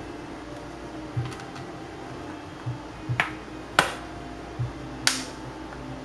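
Plastic access cover on the underside of a Toshiba L635 laptop snapping into place under the fingers: three sharp clicks in the second half, with softer taps and knocks of the hands on the plastic case around them.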